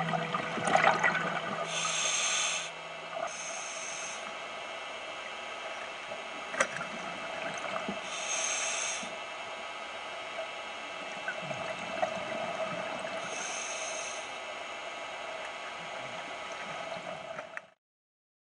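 Scuba diver breathing underwater through a regulator: short hissing bubble bursts about every five seconds over a steady hum. The sound cuts off suddenly near the end.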